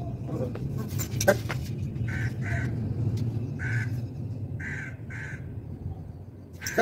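Crows cawing repeatedly in short calls, often two in quick succession, over a steady low rumble. A sharp knock sounds about a second in.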